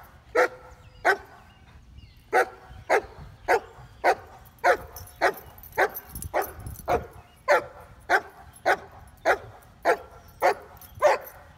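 A dog barking over and over in a steady rhythm, about three barks every two seconds, with one short pause near the start.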